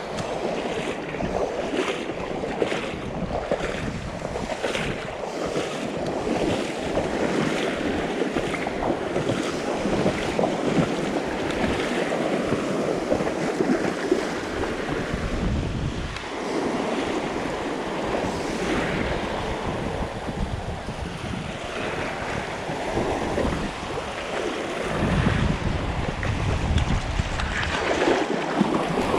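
Small waves washing along a beach shoreline, with wind buffeting the microphone in gusts.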